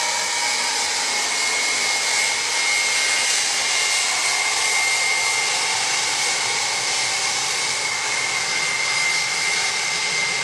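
Ilyushin Il-76TD's turbofan engines running on the ground: a steady jet rushing noise with one high, even whine.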